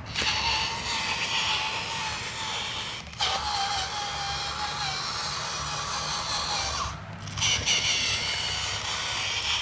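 Small electric motor of a remote-control Thomas the Tank Engine toy train whining steadily as it drives along pulling its cars. The motor stops briefly twice, about 3 and 7 seconds in.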